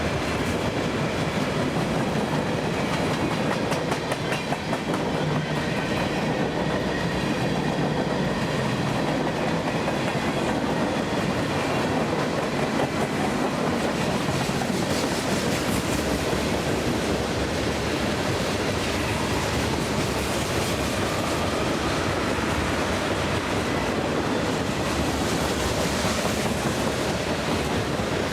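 A CSX freight train's cars roll past at track speed, with a steady clatter of wheels on rail joints and a rumbling roll.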